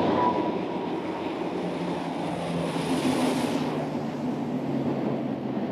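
Steady drone of the engines of a formation of military transport aircraft flying over, with a hiss that swells and fades away about halfway through.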